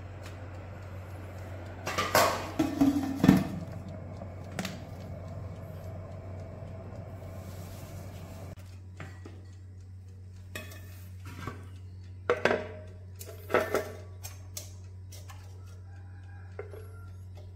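Metal tongs clattering and clinking against the wire rack and glass bowl of a halogen convection oven as grilled pork is lifted out, then tapping on a plate. A loud cluster of clatters comes about two seconds in, followed by scattered single clinks, all over a steady low hum.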